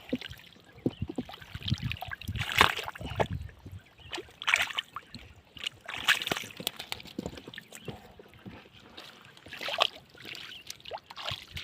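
Splashing and sloshing in shallow muddy water as fish are grabbed by hand, in several irregular bursts.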